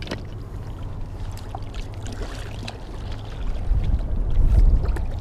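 A hooked carp splashing and thrashing in the shallows against churning spillway water, over a steady low rumble that swells about three and a half seconds in.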